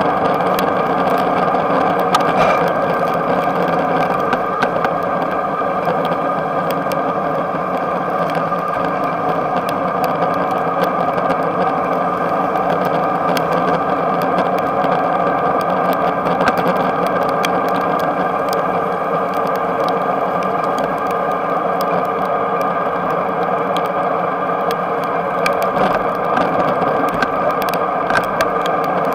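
Steady, muffled droning noise of an electric bike being ridden along a wet road, with many small scattered clicks over it.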